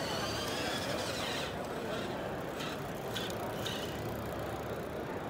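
Electric motor whine from children's STACYC electric balance bikes, gliding up and down in pitch as they speed up and slow down, over steady hall noise.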